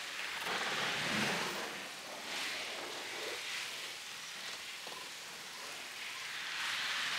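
Wind gusting through bare trees: a hiss that swells about a second in, again a little later and near the end, easing in between.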